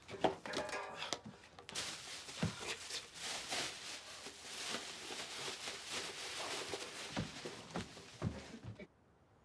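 A plastic bag and bedclothes rustling and crinkling as they are handled and rummaged through, with a few soft thumps. The sound stops abruptly near the end.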